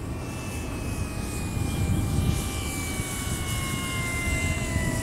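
Electric motor and propeller of a foam RC P-51 Mustang model whining on its landing approach, the pitch falling slowly as it comes in with the throttle back. Wind rumble on the microphone underneath.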